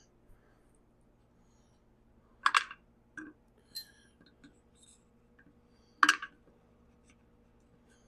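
Sharp clacks and clicks of hard parts and tools being handled while working on a chainsaw: two loud knocks about two and a half and six seconds in, with a few lighter clicks between them.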